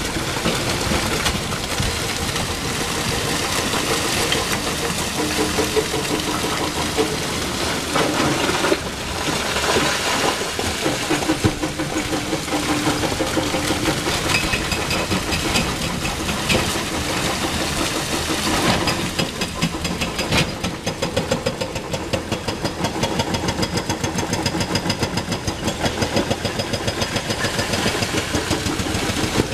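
Excavator diesel engine running under work at a sand-and-rock face, with loose stones clattering down the slope. About two-thirds of the way through, the engine sound takes on a fast, regular pulsing.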